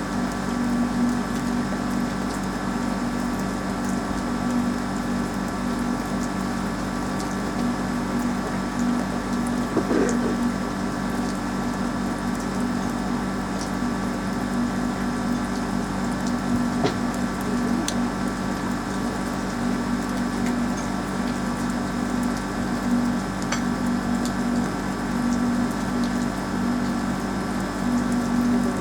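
A steady machine hum with several fixed tones, with a few faint scattered ticks over it.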